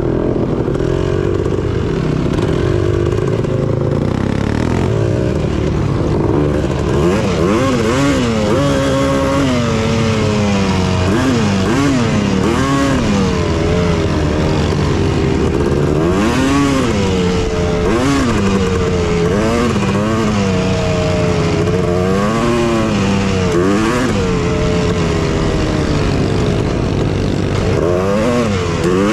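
Honda TRX250R quad's two-stroke single-cylinder engine running under way, fairly steady at first, then rising and falling in pitch every second or two from about seven seconds in as the throttle is worked.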